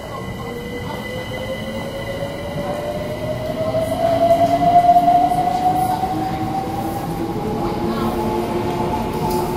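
Train running, with a whine that rises slowly in pitch over a rumbling noise. It is loudest about halfway through.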